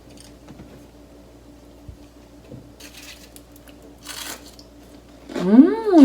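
A few soft crunches of someone biting into crispy deep-fried fish, then near the end a loud pleased hum of enjoyment that rises and falls in pitch.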